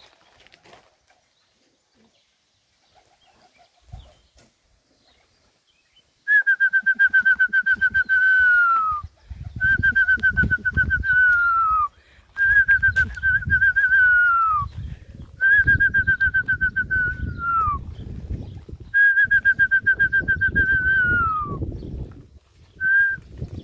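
A whistle blown in five long trilled blasts, each a steady high note that drops in pitch at its end. A short blip follows near the end.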